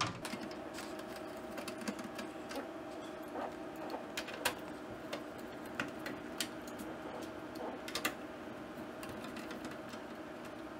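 Scattered light clicks and ticks of a hand screwdriver turning out small screws and of fingers handling the metal computer case, over a low steady hum.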